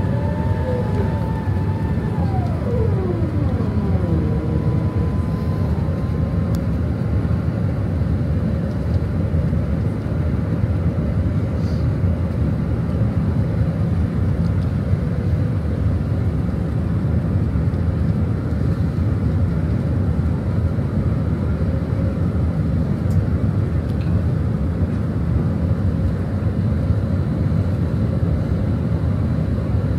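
Steady rushing noise inside an Airbus A380's cabin during descent, from airflow and engines. A whine falls in pitch about two to four seconds in.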